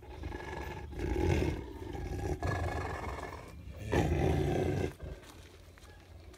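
A large dog growling deeply in three rough bursts of about a second each, the last ending about five seconds in.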